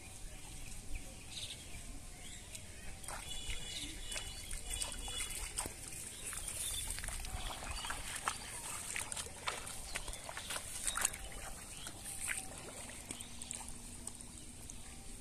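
Shallow paddy water sloshing and splashing, with wet plants rustling, as someone wades and handles a bamboo fish trap covered in water hyacinth; the splashes and rustles come thickest in the middle stretch.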